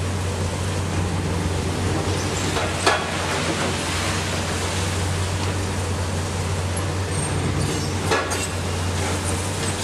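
Large hydraulic excavators' diesel engines running steadily with a constant low hum. There is a sharp knock about three seconds in and another about eight seconds in.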